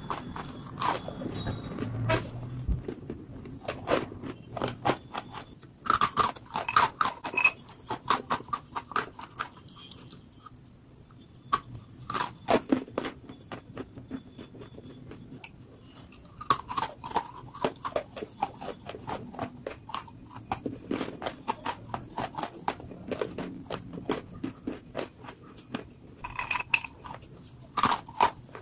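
A person biting and chewing dry clay chunks: bursts of sharp, crisp crunches as the lumps crack between the teeth, with quieter pauses between the bites.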